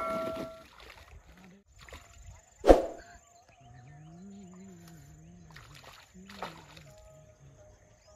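Water splashing in a shallow river: one sharp splash about two and a half seconds in and a smaller one about six and a half seconds in. The tail of a bell-like chime fades out at the very start.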